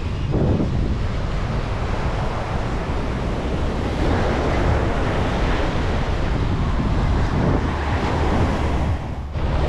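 Ocean surf washing onto the beach, a steady rushing hiss, with wind buffeting the microphone in a low rumble.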